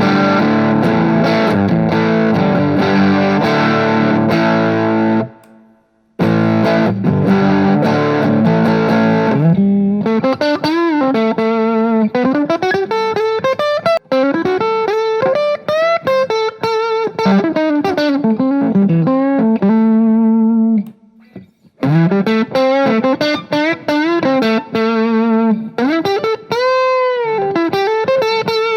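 Main Street Stratocaster-copy electric guitar on its neck pickup, played through a Vox amp's boutique setting. It strums chords for about the first ten seconds, then plays single-note lead lines with string bends and vibrato, ending in a wide bend near the end.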